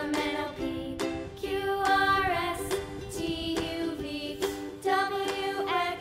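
Children's background music: a sung melody over steady accompanying notes.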